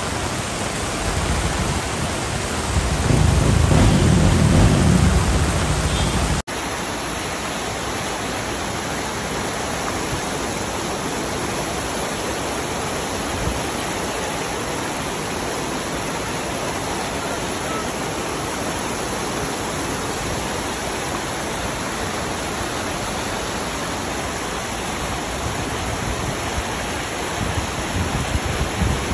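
Floodwater rushing across a street in heavy rain, a steady roar of water. A louder low rumble swells between about three and six seconds in, and the sound changes abruptly just after, continuing as rushing floodwater.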